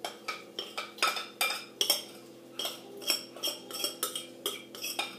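A utensil scraping and knocking against the inside of a glass mixing bowl while melted chocolate is scraped out, a quick series of short clinks at about four a second.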